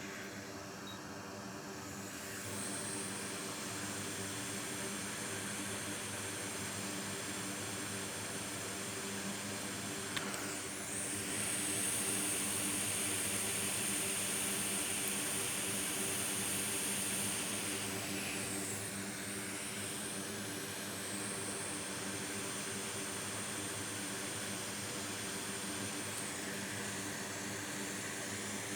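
Hot air rework station blowing steadily, a rushing hiss that grows louder for several seconds in the middle and then settles back, over a steady low hum.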